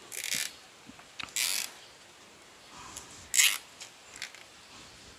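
Plastic cable tie being pulled tight, its teeth zipping through the ratchet lock in three short pulls.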